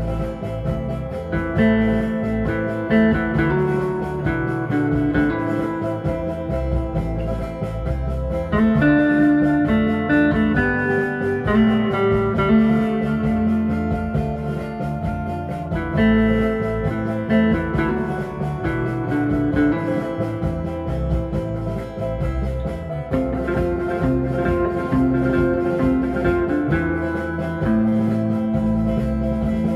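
Guitar music: plucked guitar playing a continuous run of changing notes.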